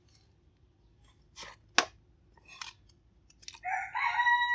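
A cleaver cutting through chunks of raw jackfruit on a cutting board: about four separate sharp cuts. Near the end a rooster starts crowing.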